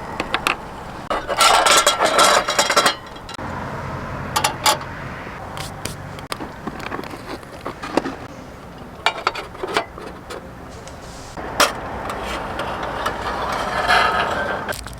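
Scattered knocks, clicks and clinks of objects being handled, with a dense clatter for about two seconds near the start.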